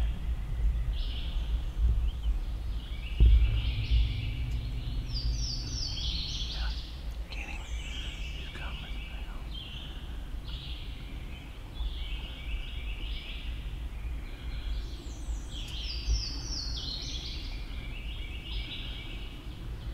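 Songbirds singing, repeated runs of high notes stepping downward, over a steady low rumble, with a single thump about three seconds in.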